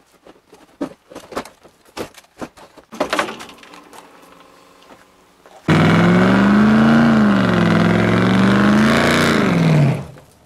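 Scattered clinks and clanks of hand work in a van's engine bay, then, about halfway through, a sudden loud Ford Mustang engine revved hard as the car accelerates away: its pitch climbs, dips, climbs again, and falls away near the end.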